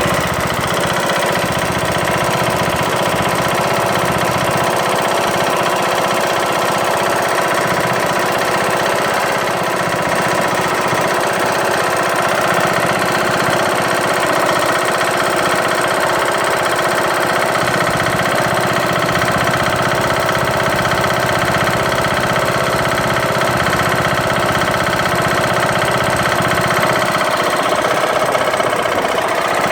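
Briggs & Stratton engine of a Craftsman LT2000 lawn tractor running steadily with a loud, fast, regular knock. The knock came on after a broken camshaft and timing gear were replaced, and its cause is not yet known.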